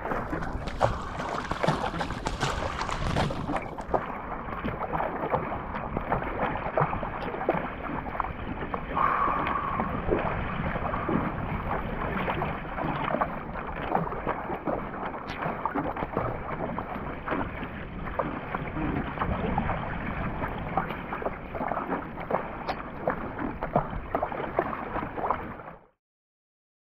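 Water rushing and splashing against a surfski's hull, with the splashes of paddle strokes, heard from the bow. It cuts off suddenly near the end.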